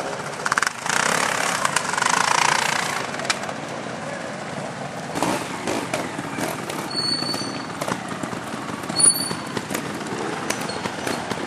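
Off-road trials motorcycle engines running and revving at low speed on a steep climb, uneven with many short pops. The sound is loudest and densest about one to three seconds in.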